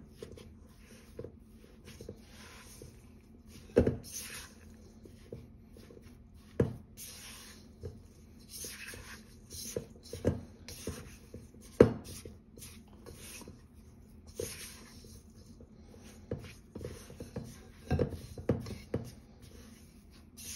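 A spatula scraping and pressing crumbly cookie dough around a stainless steel mixing bowl, in short rubbing strokes. Several sharp knocks ring out as the spatula strikes the metal bowl.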